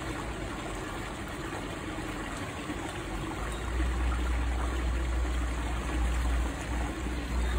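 Steady trickle of running water, with a low rumble that grows louder about four seconds in.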